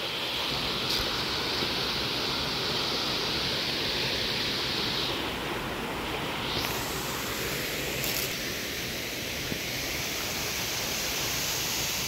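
Steady rush of a waterfall and rocky forest stream.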